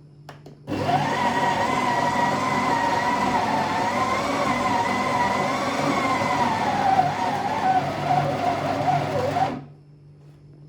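SHARDOR electric conical burr coffee grinder grinding beans at its finest setting: a steady motor whine with a grinding rasp. It starts about a second in, its pitch wavers and drops slightly toward the end, and it cuts off suddenly.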